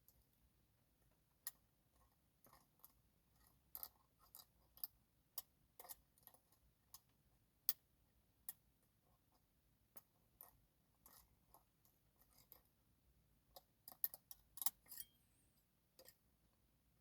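Light, irregular metallic clicks and taps of a lock pick and tension tool working the pin-in-pin pins of an Avocet ABS dimple lock cylinder, with a quick flurry of clicks near the end.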